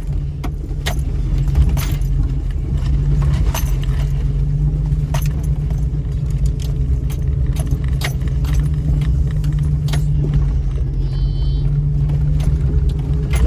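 2000 Jeep Cherokee driving slowly over a rough trail, heard from inside the cab: a steady low engine and drivetrain drone with frequent sharp clicks, rattles and jingling as the vehicle jolts over the ground.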